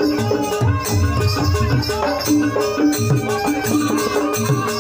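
Live jaranan gamelan music: short pitched metallic notes repeating in an even rhythm over drum strokes, with a shaken, rattling percussion on top.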